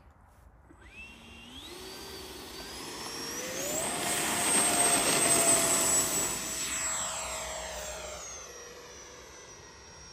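FMS Rafale model jet's 80 mm electric ducted fan spooling up in steps to a high, steady whine, loudest about halfway through, then fading away with its pitch stepping down near the end.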